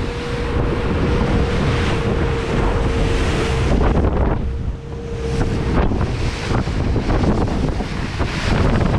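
Wind buffeting the microphone and water rushing and splashing along the hull of a Stabicraft 2050 Supercab aluminium boat running through rough, choppy water. A steady hum sits under it, breaking off briefly about four seconds in and gone after about six seconds. Spray hits the camera repeatedly near the end.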